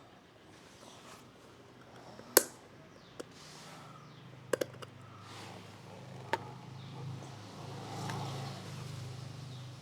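A few sharp clicks and knocks, the loudest about two seconds in, with a quick pair and a single one later. A low hum builds from about three and a half seconds in.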